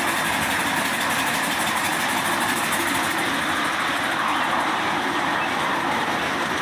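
Ride-on miniature park train rolling along its small-gauge track, heard from aboard: a steady running noise of the train and its wheels on the rails.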